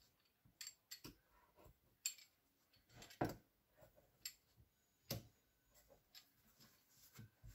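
Faint, scattered ticks and taps of a pizza-cutter wheel cutting through dough and knocking against a wooden board, about one a second.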